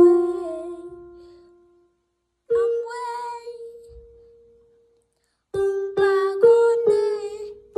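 Piano keys struck by a child: a note at the start rings and fades away over about two seconds, another sounds at about two and a half seconds and slowly dies out, then from about five and a half seconds a run of quick notes repeats on two neighbouring pitches.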